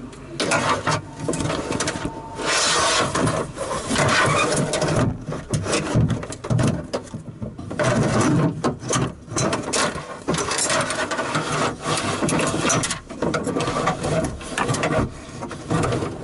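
A replacement door lock actuator and latch assembly being worked into a Toyota Highlander's front door shell: irregular scraping and rubbing with short clicks and knocks as the part and its cables drag against the inner door metal.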